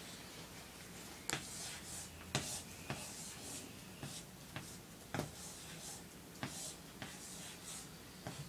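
Chalk scratching and tapping on a chalkboard as figures are written, with sharp taps about once a second.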